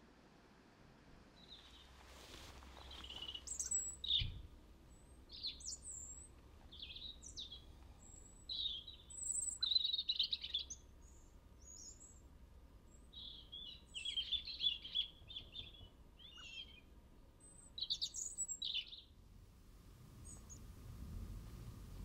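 Small songbirds calling: an irregular series of short, high chirps and call notes, some in quick clusters.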